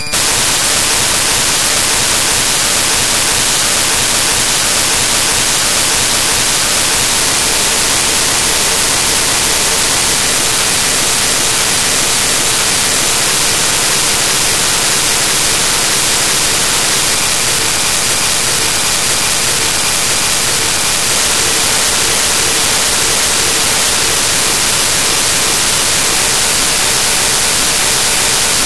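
Loud, steady static hiss that cuts in suddenly, the noise of a corrupted digital audio stream.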